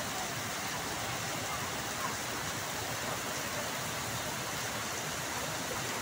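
A muddy flash flood surging down a waterfall river: a steady, unbroken rush of water.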